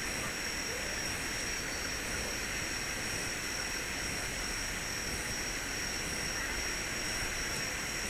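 Steady rushing noise with a constant high-pitched whine over it.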